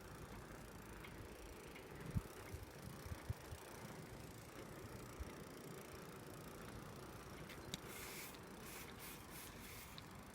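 Restored Raleigh Cameo bicycle being ridden: a faint low rumble with a few knocks and rattles, then a quick run of short hissing sounds about eight seconds in.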